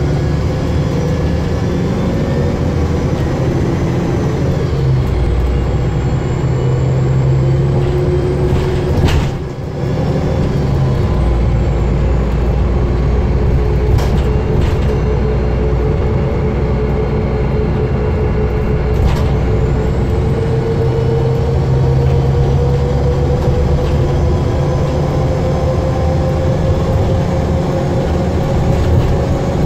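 DAF DB250LF double-decker bus engine heard from inside the passenger saloon, running hard on the move. The sound drops briefly about a third of the way in, and a whine rises slowly through the second half.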